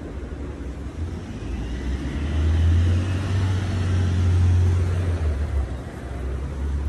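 Road traffic: a vehicle passing, its noise swelling over a couple of seconds and then easing off, over a steady low rumble.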